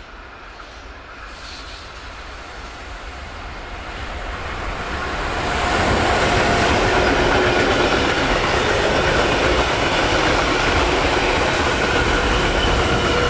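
Freight train hauled by a Class 185 electric locomotive approaching and passing close by. It grows louder over the first six seconds, then the wagons keep up a loud, steady rumble as they roll past.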